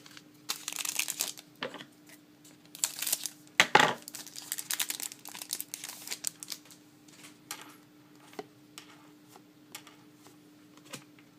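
Crinkling and rustling of a trading-card pack wrapper being handled and torn open, with small clicks and taps of cards, in two louder bursts early on and sparser handling sounds after. A faint steady hum runs underneath.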